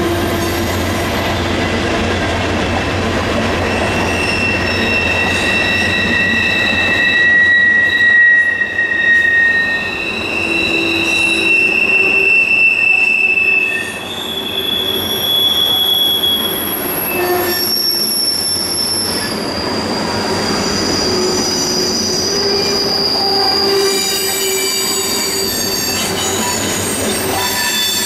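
Long freight train's cars rolling past, steel wheels squealing against the rails. High-pitched squeals overlap and shift in pitch, each holding for a few seconds, over a steady rumble of the wheels.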